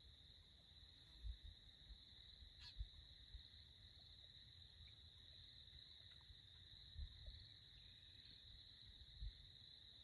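Near silence: a faint, steady high-pitched chorus, with a few soft low thumps.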